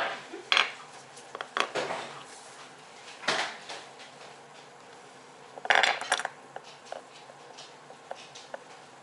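Small hard objects clicking and clattering as they are handled, in scattered knocks, with the loudest clatter about six seconds in and light ticks after it.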